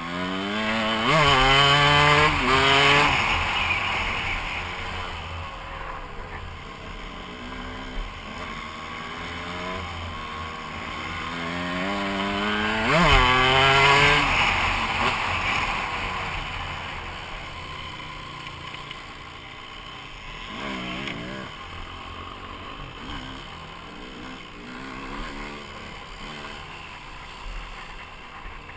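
KTM dirt bike engine heard on board, revving hard twice, about a second in and again around thirteen seconds, its pitch climbing quickly with each burst of throttle, then settling back to a lower, quieter running sound.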